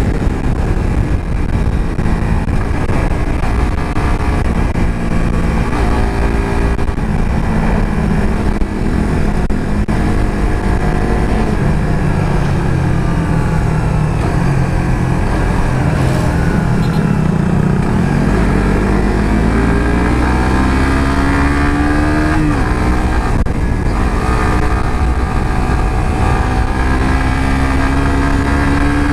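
Suzuki GSX-R150's single-cylinder engine heard from the rider's seat under heavy wind noise. It runs at speed, settles lower as the bike slows, then rises in pitch as it accelerates, with an upshift about two-thirds of the way through and a further climb after it.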